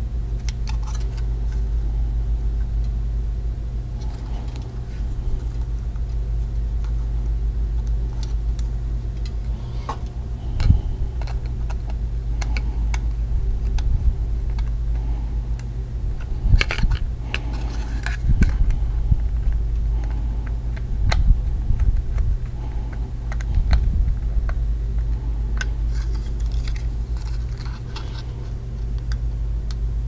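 Small plastic clicks and rattles of a motion detector's housing and its wires being handled while the detector is wired, heard in scattered bunches over a steady low hum.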